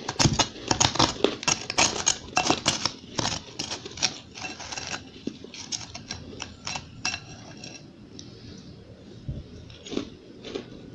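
Metal spoon digging and scraping through crushed, powdery ice in a glass bowl, clinking against the glass. A dense run of crunchy scrapes and clicks lasts about five seconds, then thins to scattered scrapes with a few sharper clinks near the end.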